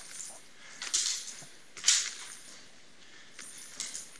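Steel rapier blades clacking together in a fencing exchange: two sharp loud clacks about a second apart, with a few fainter ticks before and after.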